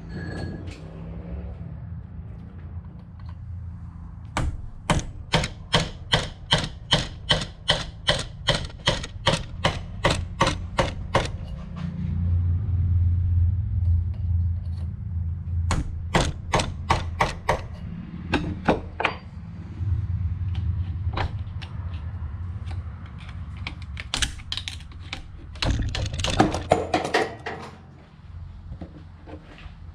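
Hammer tapping a punch to drive the roll pin out of a T5 five-speed transmission's shifter shaft, so the top cover can come off: runs of sharp metallic taps, about three a second, with more short runs later, over a steady low hum.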